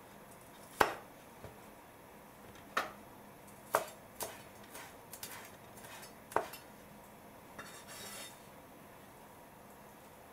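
Kitchen knife chopping small henbit sprigs on a wooden cutting board: about seven sharp, irregular knocks of the blade on the board, the loudest about a second in, then a brief scraping sound near the end.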